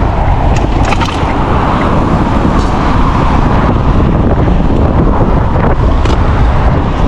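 Strong gusty wind buffeting the microphone: a loud, steady rumble with a few faint clicks.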